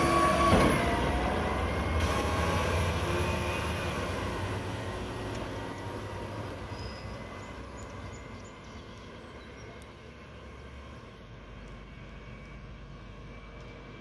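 Mack garbage truck with a McNeilus front-loader body driving away, its diesel engine rumble fading steadily into the distance. A sustained horn note cuts off about half a second in.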